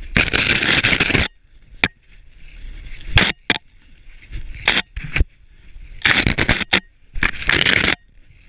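Snow crunching and scraping under gloves and boots in rough bursts of about a second, with a few short sharp knocks between them.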